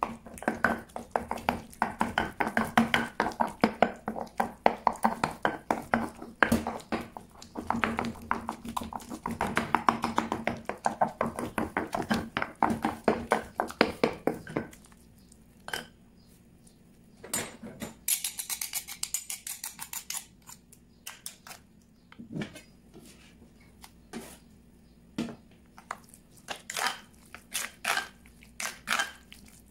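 Stone pestle mashing avocado in a lava-stone molcajete: rapid wet squishing strokes and stone scraping on stone for about fifteen seconds. Then come a few separate knocks and a short hiss, and near the end a run of clicks from stirring against the stone bowl.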